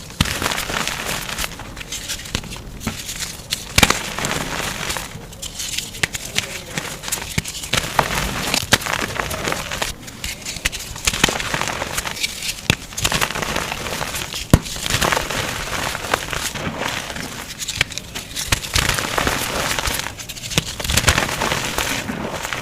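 Gym chalk being crushed and crumbled, sped up to double speed: a dense run of crunches and crackles with a few sharp snaps.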